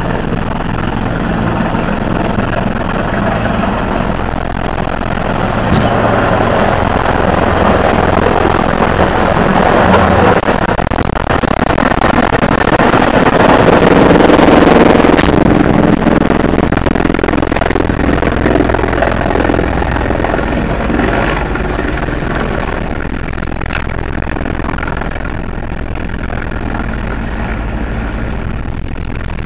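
Police helicopter landing: turbine and rotor noise that grows louder to a peak about halfway through as the helicopter comes overhead and descends. It then settles to a lower, steadier running sound once it is on the ground.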